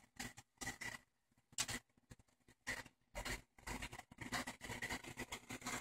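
Faint irregular clicks and light scratching, sparse at first and more frequent in the second half, like hands handling and operating the turntable.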